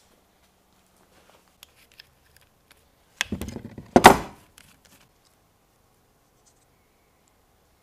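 A few light clicks of tools being handled on a wooden workbench, then a brief clatter and one loud slap about four seconds in as a large sheet of cardboard is laid down flat on the bench.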